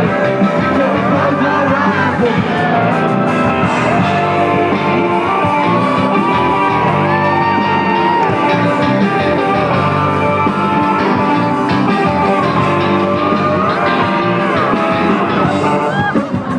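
A live rock band playing loud, with electric guitars and a voice singing over the band.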